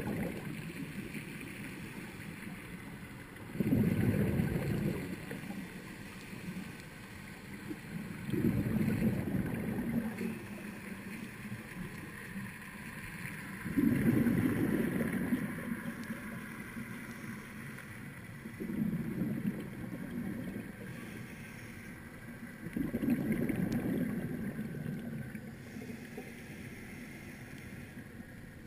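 Scuba diver breathing through a regulator underwater: a loud rush of exhaled bubbles about every five seconds, with a fainter hiss in between.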